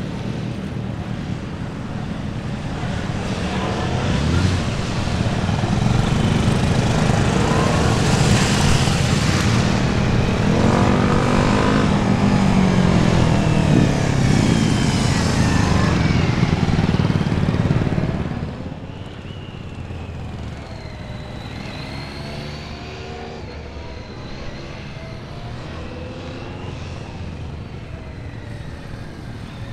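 Honda CB400 Super Bol d'Or's inline-four engine revving up and falling back as the motorcycle is ridden through left-right turns with the throttle on and off. It is loudest in the first two-thirds, then drops suddenly and runs on quieter and farther off.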